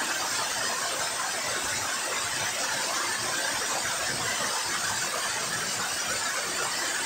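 Small waterfall pouring down a rock face into a river pool, swollen by the rain: a steady rush and splash of water.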